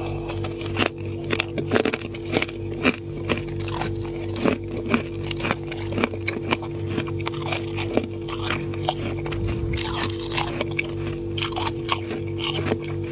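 Mouth biting and crunching freezer frost: irregular crisp crunches, a few a second, over a steady low hum.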